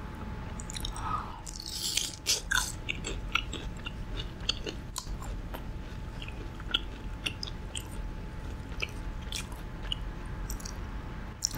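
A person biting and chewing crisp fried food close to the microphone, with many short, sharp crackling crunches.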